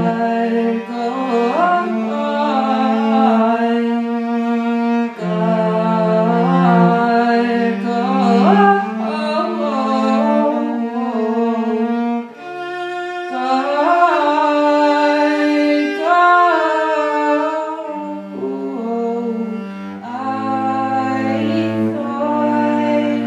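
A song performed with a voice singing long, sliding notes over sustained low held notes, with a short dip in loudness about halfway through.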